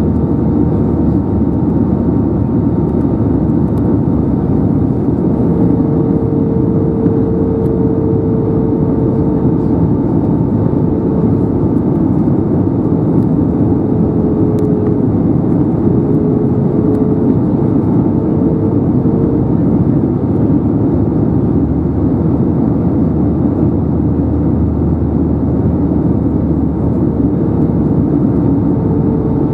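Steady in-flight cabin noise of an Airbus A320neo in descent, heard at a window seat over the wing: airflow and the Pratt & Whitney PW1100G geared-turbofan engines. A faint steady whine runs through it, with a lower hum that drifts in and out.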